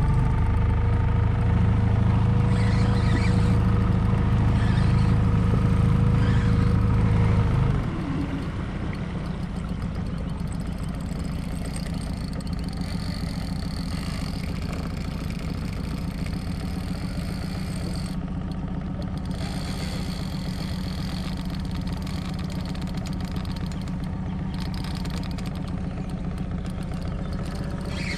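Boat outboard motor running steadily under way, then throttled back about eight seconds in to a quieter, lower-pitched running.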